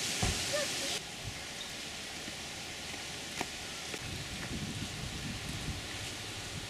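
Outdoor ambience: a steady hiss, with a brief chirp near the start and low wind rumble on the microphone in the second half.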